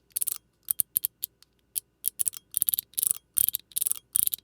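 Cyber EDC Phase PEI mechanical fidget worked back and forth over its detent tracks, each pass a quick run of crisp clicks. The passes are irregular at first, then settle to about two or three a second.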